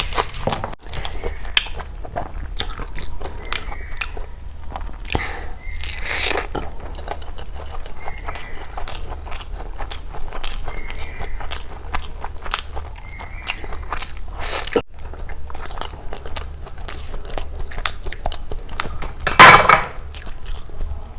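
Close-miked mukbang eating of chicken biryani and egg curry: a steady run of wet chewing, biting and mouth clicks and smacks, with one louder crunching burst near the end.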